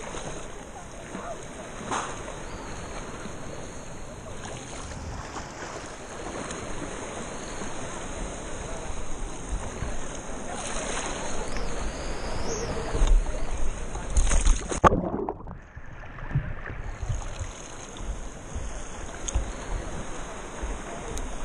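Sea water sloshing and splashing around an action camera held at the surface, with louder splashes about twelve to fifteen seconds in, then a couple of seconds where the sound goes muffled.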